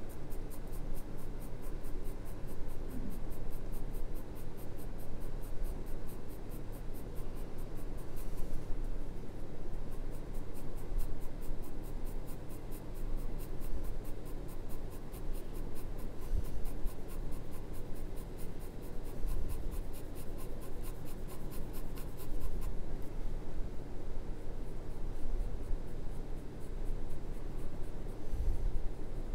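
Graphite pencil shading on drawing paper: a continuous scratchy rasp of small repeated strokes, its loudness flickering with each stroke.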